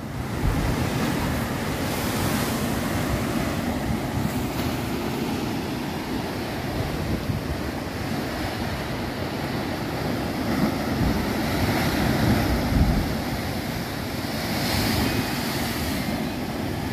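Rough ocean surf surging and breaking against the rocks at the foot of a cliff, a steady rushing wash that swells louder around two thirds of the way through. Wind buffets the microphone.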